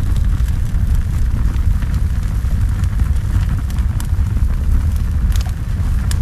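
Fire roaring: a loud steady low rumble with scattered sharp crackles.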